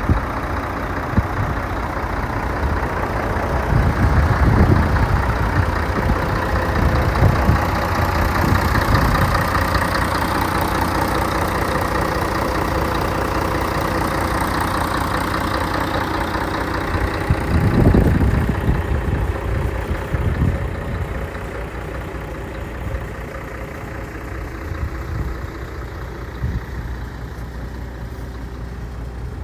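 Scania hooklift truck's diesel engine idling steadily, a little quieter in the last third, with a few low gusty swells over it.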